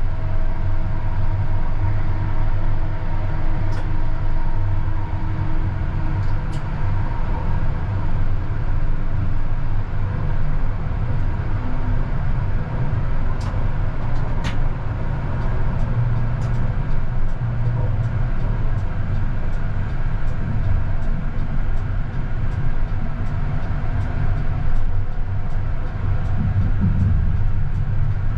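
CAF Urbos 100 tram running along the track, heard from on board: a steady low rumble of wheels on rail, with faint steady whining tones that fade out about halfway and a few short high ticks.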